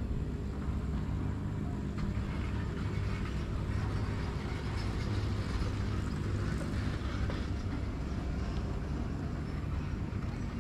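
Steady low outdoor rumble, even throughout, with a faint underlying hum.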